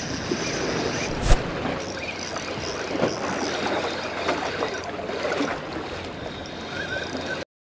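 Steady noise of sea water sloshing against the shore, mixed with wind on the microphone, with a single sharp knock about a second in.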